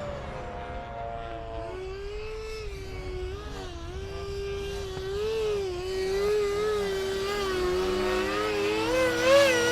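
Whine of an RC SU-35 jet's electric ducted fan in flight. The pitch wavers up and down throughout and climbs toward the end as the jet maneuvers and passes.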